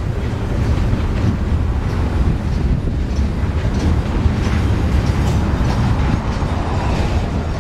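CSX freight train rolling past, a steady low rumble from the cars with faint clicks from the wheels on the rails.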